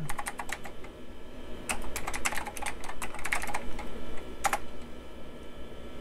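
Typing on a Nan Tan Computing vintage mechanical-switch keyboard: a quick run of key clicks, a short pause, a longer run of keystrokes, then one single louder keystroke a little after four seconds in.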